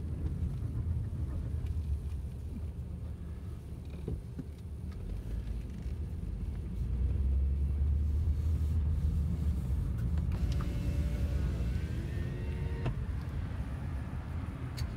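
Car driving slowly, heard from inside the cabin: a steady low rumble of engine and tyres that grows louder for a couple of seconds around the middle. A faint wavering tone comes in briefly later on.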